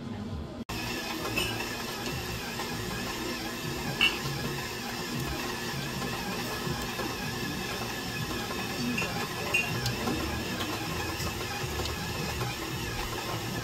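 Kitchen work noise: a steady hum with a few light clinks of dishes.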